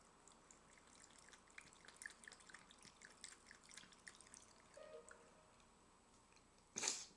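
Cat lapping water from a thin faucet stream: quick, faint, irregular wet licking clicks for about five seconds over the faint trickle of the running tap. A short, louder noise about seven seconds in.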